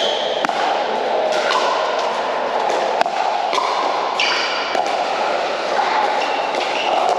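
Pickleball paddles hitting the plastic ball in a doubles rally: a string of sharp, short pocks at uneven spacing. Under them runs the steady din of other courts echoing in a large hall.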